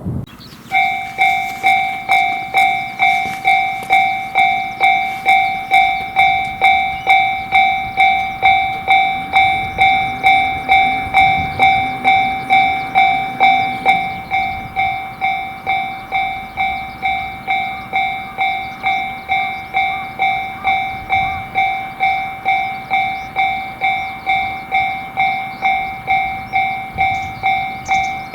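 Japanese railway level-crossing alarm sounding its 'kan-kan' warning as the crossing activates. It starts about a second in and repeats steadily about twice a second.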